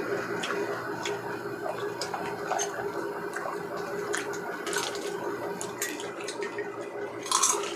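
Chewing and crunching of crispy deep-fried chicken innards, with scattered light clicks of utensils and containers.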